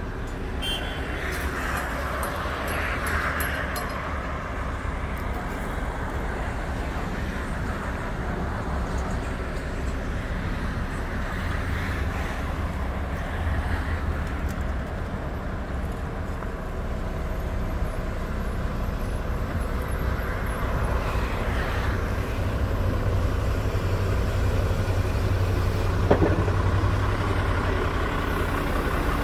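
Heavy diesel truck engine running steadily under the Palfinger PK 15500 knuckle-boom crane it carries, its low drone growing a little louder in the second half. A single sharp clank near the end.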